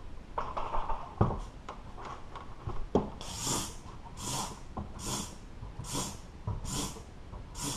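Fluid evacuation device sucking coolant out of a GM 3800 V6 engine through a thin tube. A few faint clicks and knocks, then from about three seconds in six short hissing sucks, evenly spaced about three-quarters of a second apart.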